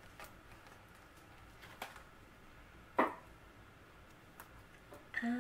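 A few light taps and clicks from fingers handling a sticker and the paper planner page, the sharpest about three seconds in. Near the end a woman starts humming a single steady note.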